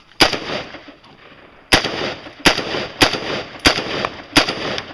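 Gunshots from a shooter firing a stage: one shot, then after a pause of about a second and a half, five more in quick succession about two thirds of a second apart, each followed by a short echo.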